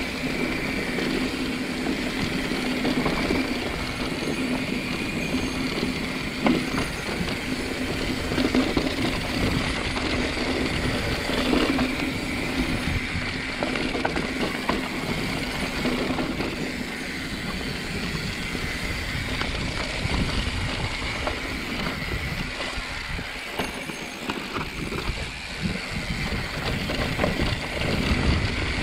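Mountain bike ridden along a dirt trail: steady rolling noise from the tyres, with scattered knocks and rattles from the bike over bumps.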